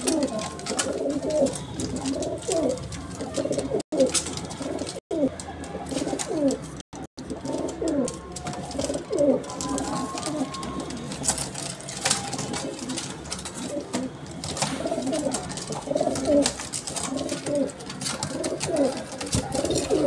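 Teddy pigeons cooing over and over, a continuous run of low, wavering coos.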